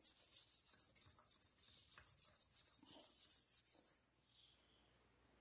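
Scotch-Brite pad scrubbing the driveshaft of a Yamaha 50 hp four-stroke outboard's lower unit in fast, even strokes, about five a second, stopping abruptly about four seconds in. It is cleaning buildup off the shaft so the water pump impeller slides back on easily.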